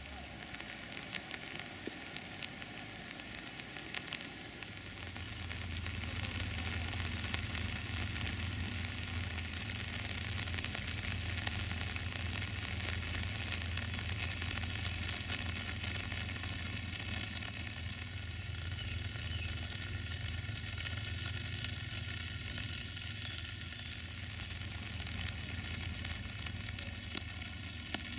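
Steady rain falling, a continuous hiss with the patter of many drops. A steady low hum sits underneath from about five seconds in.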